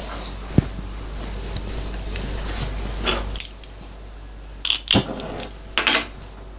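Light metallic clinking and clattering of metal parts and tools being handled, with a sharp knock about half a second in and bunches of clinks later on. A steady background hiss and hum stops about halfway through.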